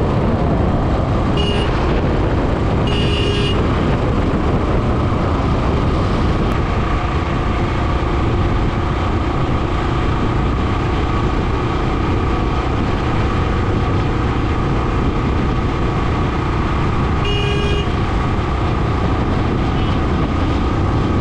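Steady wind and road noise of a motorcycle riding on a highway. Vehicle horns toot briefly twice near the start and once more later.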